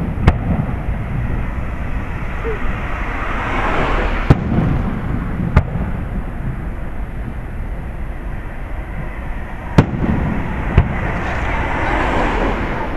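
Aerial firework shells bursting overhead: about five sharp bangs spaced a few seconds apart, two of them close together near the end, over a steady low rumble. A hiss of noise swells twice, a few seconds in and again near the end.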